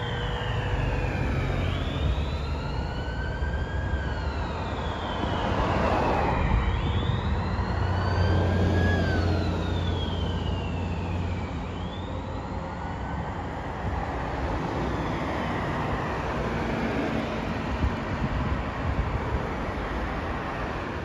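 Fire truck sirens wailing, rising and falling in pitch over and over above the noise of passing traffic, with a deep low rumble underneath that is strongest in the middle. The title credits appliance 528B with a Rumbler low-frequency siren.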